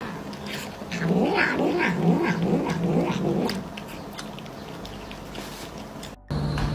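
A cat making a string of wavering, growly murmurs while it eats, with smacking of its mouth, for about two and a half seconds before it goes quieter.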